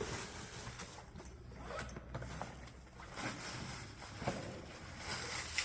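A bag being unzipped and rummaged through: irregular zipping and rustling strokes as gear is pulled out, busier near the end.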